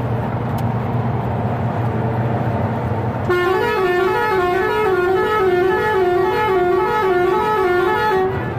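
Truck engine running steadily in the cab. About three seconds in, a multi-tone musical horn starts playing a warbling tune that steps up and down and repeats about twice a second. It runs for some five seconds, then cuts off.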